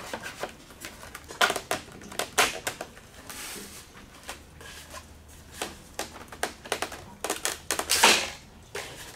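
Foam wing of an RC glider being slid onto its metal spar and pushed against the fuselage until its latches engage: a run of irregular plastic clicks, foam rubs and knocks, the loudest and longest about eight seconds in.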